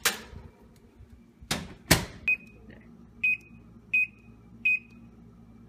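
Wall microwave oven: a knock, then the door banging shut with two sharp thuds about a second and a half in, followed by four short high beeps from its keypad as buttons are pressed to set the cooking time.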